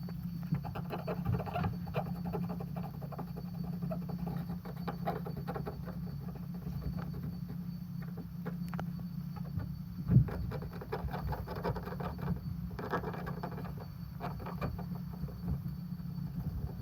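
Cotton swab dabbing and rubbing clear gloss onto a raised car emblem: faint, irregular scratchy rubbing over a steady low hum, with a single light knock about ten seconds in.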